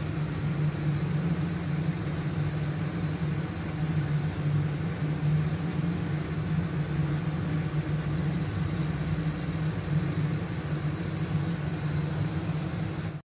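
Steady low machine hum with an even hiss over it, unchanging until it cuts off suddenly near the end.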